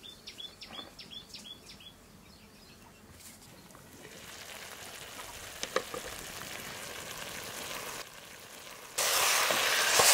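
Chicken and gongura (sorrel leaf) curry sizzling and bubbling in a clay pot as it cooks in its own released water, a hiss that builds and turns much louder about a second before the end. A bird gives a quick run of short chirps in the first two seconds.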